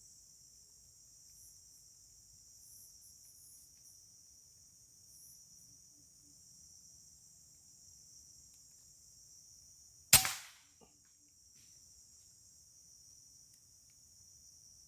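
A single air rifle shot, fired at a squirrel, about ten seconds in: one sharp crack that dies away within half a second. A steady high-pitched insect drone runs underneath.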